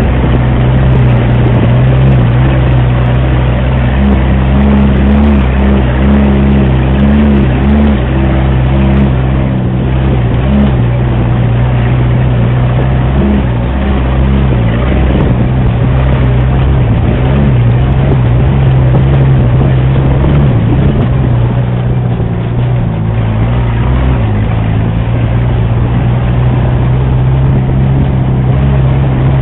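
Engine of an off-road 4x4 driving a muddy dirt track: a steady engine drone that wavers slightly in pitch now and then.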